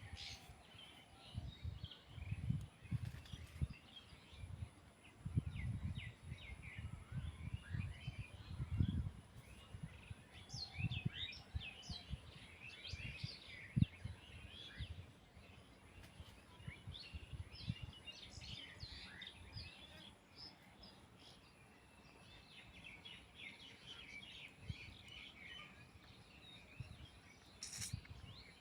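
Small birds chirping in many short, high calls, with low thuds and rumbling through the first half.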